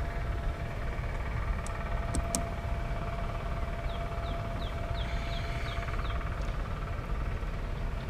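Honey bees humming steadily around an open hive under a low rumble, with a few sharp clicks about two seconds in as the metal hive tool and wooden frames knock together. Midway comes a run of about eight short, high, falling chirps.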